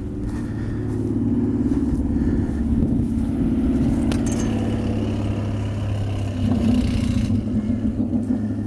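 An engine running steadily with a low, even hum, a sharp click about four seconds in, and a slight swell near seven seconds.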